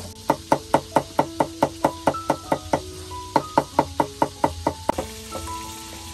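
A kitchen knife chopping quickly on a thick wooden chopping block, about four to five strokes a second, with a brief pause near the middle; the chopping stops about five seconds in. Background music plays throughout.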